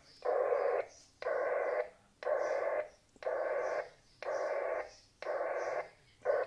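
Radiosonde telemetry received through an FM transceiver tuned to about 402 MHz: a buzzing data burst about half a second long, repeating once a second.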